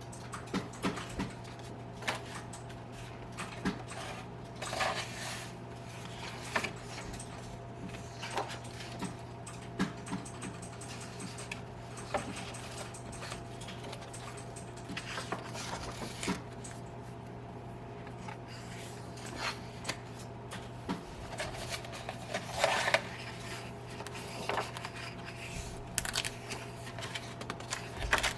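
Scattered light clicks, taps and short scrapes of small objects being handled on a hard surface, over a steady low electrical hum.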